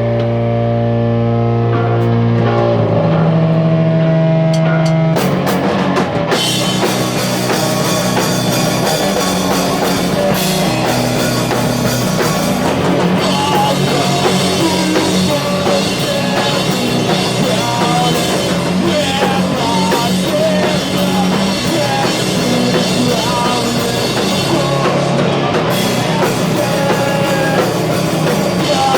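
Live rock band playing loud: it opens with slow, ringing held notes and no drums, then about five seconds in the drums and full band crash in together and play on.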